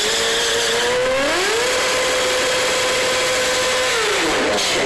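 Sport motorcycle engine being revved: the pitch climbs about a second in, is held steady at high revs for a couple of seconds, then drops back near the end.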